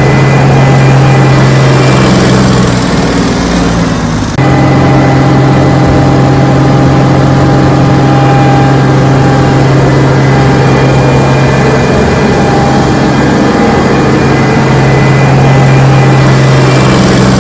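Case 1680 Axial Flow combine harvester's diesel engine running steadily with a strong low hum. About three seconds in the sound sags briefly, then comes back abruptly a second later.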